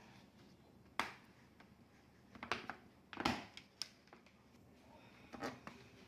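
Handling noises: a handful of sharp clicks and knocks with short rustles, the loudest about a second in and just past three seconds.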